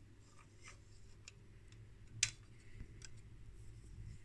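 Faint, scattered light clicks from handling the plastic window frame of a measuring amplifier's front meter, with one sharper click about two seconds in, over a low steady hum.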